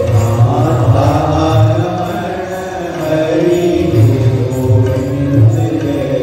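Hindu devotional chanting sung to music, a held and bending melodic line over a strong low accompaniment.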